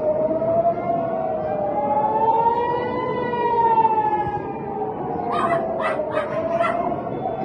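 Civil-defence air-raid siren wailing, its pitch rising and falling slowly in a cycle of about six seconds: the warning of incoming rockets. A dog barks about five times near the end.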